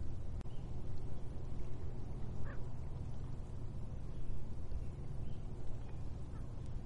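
Steady low rumble with faint, short bird chirps scattered through it, one a rising chirp about two and a half seconds in.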